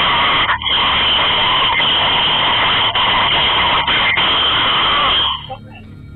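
Loud, steady rushing hiss like static on a security camera's own microphone, broken by a few split-second dropouts and cutting off suddenly about five seconds in. A few faint short blips follow near the end.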